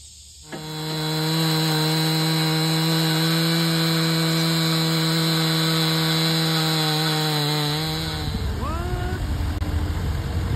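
Chainsaw in a chainsaw mill ripping a log lengthwise into boards, held at full throttle at one steady pitch; it comes in suddenly about half a second in. About eight seconds in it gives way to a lower, rougher engine rumble.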